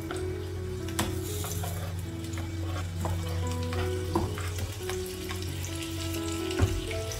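Sliced onion sizzling in hot oil in a frying pan as it is stirred and spread, with sharp clicks of tongs and cutting board against the pan, one about a second in and the loudest near the end.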